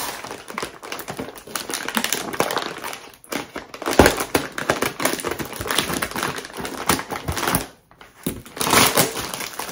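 Vacuum-sealed bubble-wrap plastic packaging crinkling and crackling as it is torn open and handled, a rapid run of small crackles with a short break about eight seconds in.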